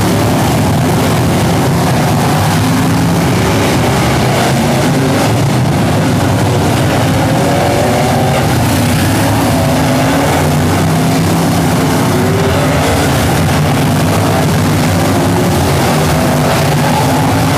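Several race car engines running loud and continuous, their pitch rising and falling as the cars accelerate and slow around the track.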